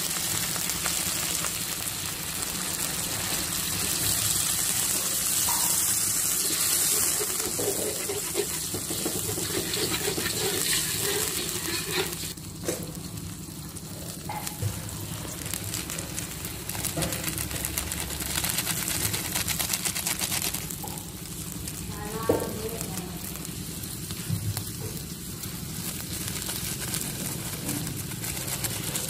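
Spice paste sizzling in hot oil in a wok, stirred with a metal spatula. About twelve seconds in, the sizzle drops off sharply as water goes in, and after that the watery sauce cooks more quietly, with a few spatula knocks.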